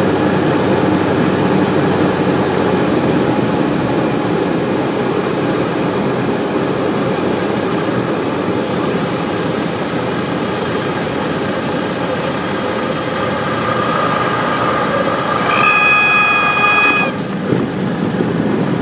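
Cessna light aircraft's piston engine running steadily at low power, then the stall warning horn sounds as one steady high tone for about a second and a half and cuts off, the sign that the plane is near stall speed in the landing flare.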